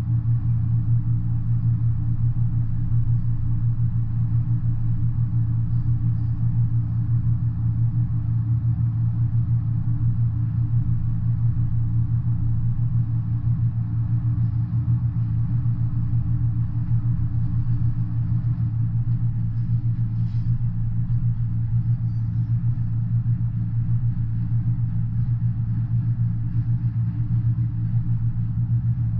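Double-stack intermodal container train rolling past, a steady low rumble of wheels on rail, heard through a window.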